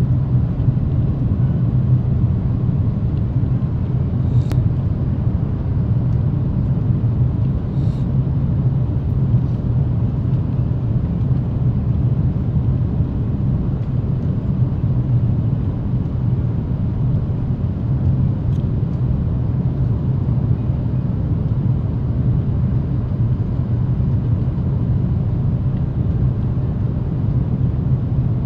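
Steady low rumble of engine and airflow noise inside the cabin of an Airbus A330-300 descending on approach, its Rolls-Royce Trent 700 engines running at a constant setting.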